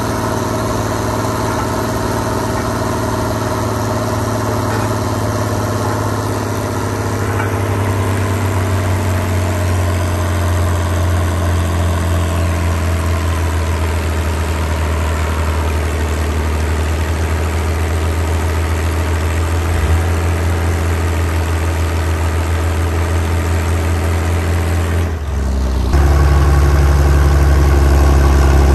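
Oliver 1850 diesel tractor engine running under load as it drags a weighted pulling sled, steady with a shift in pitch and a slight rise in loudness about eight seconds in. About 25 seconds in it cuts abruptly to another tractor engine, louder and lower-pitched.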